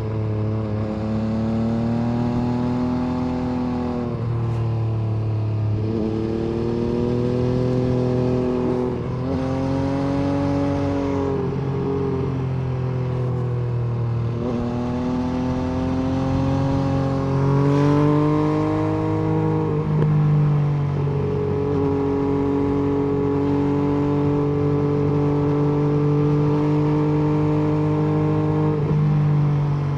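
MV Agusta F3 800's three-cylinder engine and exhaust under way, the revs climbing and dropping back several times in the first twenty seconds. Later the engine holds a nearly steady pitch.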